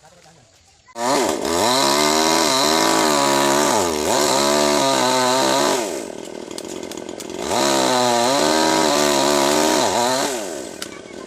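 Chainsaw cutting teak wood at high revs, its engine pitch dipping and recovering again and again under load. It starts suddenly about a second in and runs in two long loud stretches with a quieter lull in the middle, then dies away near the end.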